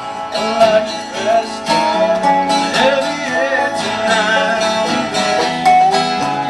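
Acoustic country or bluegrass-style music led by plucked guitar, with a wavering melody line over it.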